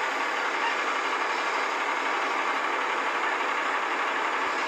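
Steady engine noise, an even wash with no clear beat, heard from inside a vehicle cabin.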